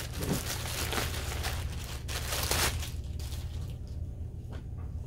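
Clear plastic poly bag crinkling as it is pulled open and a pair of joggers is drawn out. The crinkling thins after about three seconds to a few light rustles.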